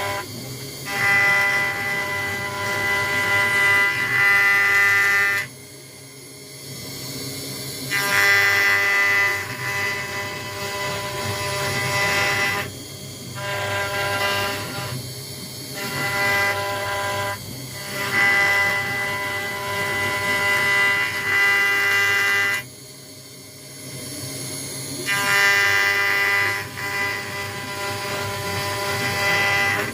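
CNC router spindle cutting acrylic with a 1 mm ball-nose end mill: a steady machine whine of several stacked tones that drops away and returns several times, twice for a couple of seconds.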